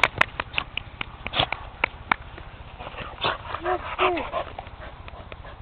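Pit bull puppies whimpering and yipping as they play, with many short sharp yaps and a couple of brief rising-and-falling whines about two-thirds of the way in.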